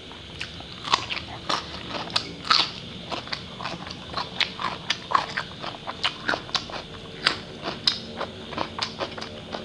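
A person biting and chewing raw cucumber close to a clip-on microphone: a run of irregular crunches, about two or three a second.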